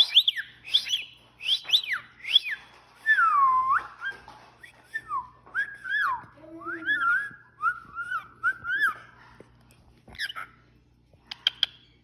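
Cockatiel whistling a song of quick rising and falling notes: a long note swooping down and back up, then a string of short repeated notes. It stops a little before the end, with one last short call.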